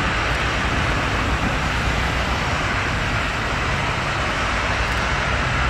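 Jet aircraft engines running steadily: a continuous, even rumble and hiss that does not change.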